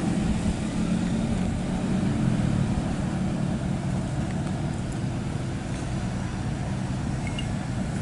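Diesel engine of a road roller running steadily with a low, even drone as the roller moves off.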